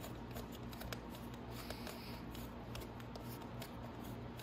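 Gloved hands unscrewing the threaded top cap of a Nibbi carburetor: scattered faint clicks and rubbing of glove on metal, over a steady low hum.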